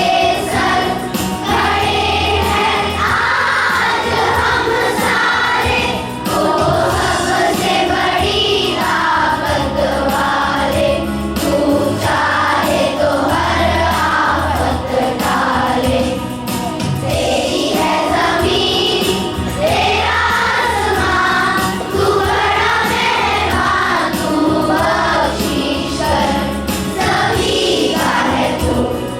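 A group of voices singing together in chorus with musical accompaniment.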